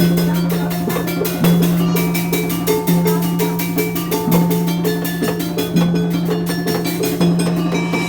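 Obrog street ensemble from Indramayu playing: a fast, even run of percussion strokes over a low note that sounds again about every one and a half seconds, with higher melodic notes on top.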